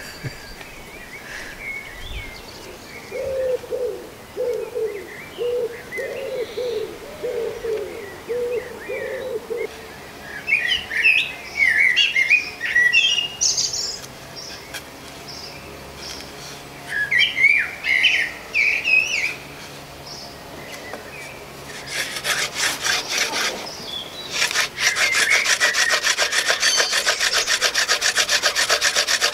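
Wooden hand-drill spindle spun back and forth between the palms in a hearth board, a fast, even, rasping rub of wood on wood that starts about three-quarters of the way through. Before it, birds sing in short bursts of chirps.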